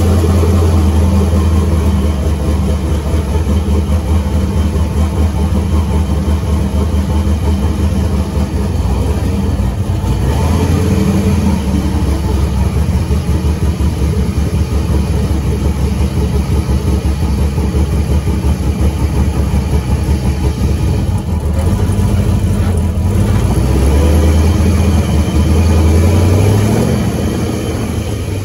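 Twin-turbocharged destroked 6-litre V8 running just after starting, revved up a couple of times in the second half. The dose pipes on the turbo inlets fail to give the hoped-for "stututu" compressor flutter.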